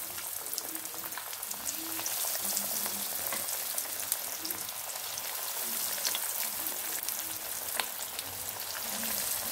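Potato-and-poha patties frying in hot oil: a steady sizzle with scattered sharp crackles.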